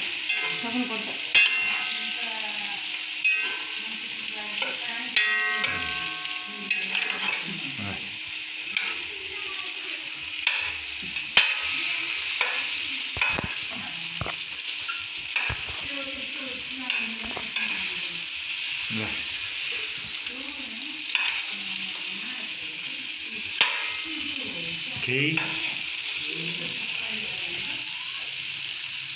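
Meat sizzling as it sears in a non-stick frying pan, being seared for chhoila, with a metal spoon scraping and knocking against the pan as the pieces are stirred and turned.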